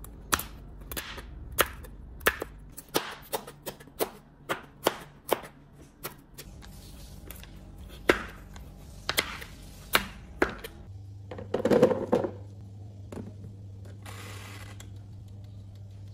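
Kitchen knife chopping through yellow pumpkin onto a plastic cutting board: a run of sharp knocks, one or two a second, for the first ten seconds or so. Then comes a brief clatter, and a low steady hum runs on to the end.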